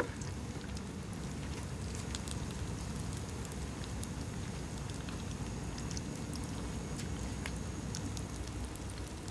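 Tempura-battered sushi roll deep-frying in hot oil in a pan: a steady sizzle with scattered small pops and crackles.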